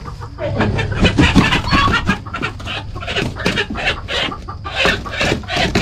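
Chickens clucking in a rapid run of short, loud calls while a hen is grabbed by hand in the coop.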